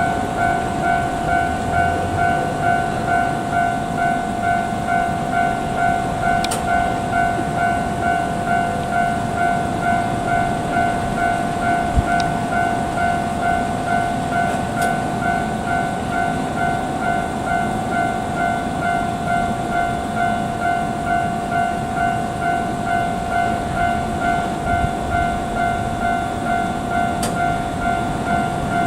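Japanese level-crossing alarm ringing in an even, steady pulse of two tones, over the rumble of a passing freight train hauled by an ED76 electric locomotive. A few sharp clicks and one low thump about twelve seconds in.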